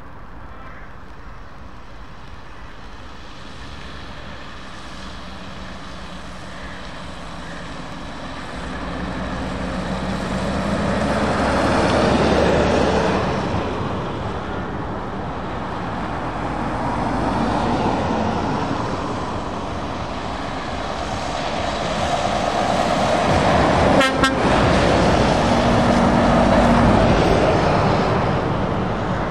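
Scania lorries passing one after another on a wet road, their diesel engines and tyre hiss on the wet surface swelling and fading with each pass, loudest about twelve seconds in and again near the end. A short horn toot sounds late on.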